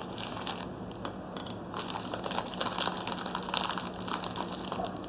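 Quick, irregular light clicks and crinkly rustling of food being handled and set into a lunchbox, over a faint steady hum.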